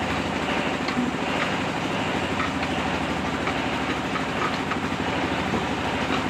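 Clay brick extruding mill (molen) running steadily as it pushes out a hollow clay brick column, a constant mechanical drone with a steady low hum and a few light ticks.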